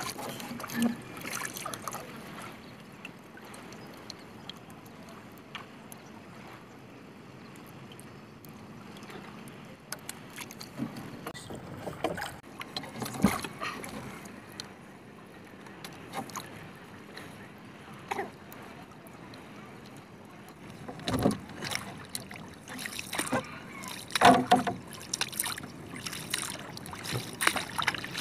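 Water lapping against a small wooden outrigger canoe, with scattered knocks and thumps in the hull as a handline and the catch are handled. A cluster of louder knocks comes a few seconds before the end.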